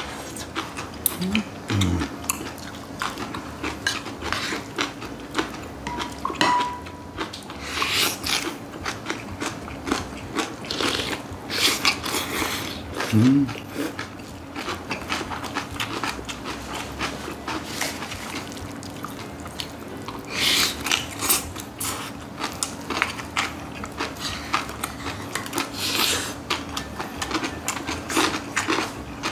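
Close-up eating sounds: crunchy chewing of raw young radish greens in bibimbap, slurping of cold cucumber soup, and spoons clinking on bowls, in irregular bursts over a steady low hum.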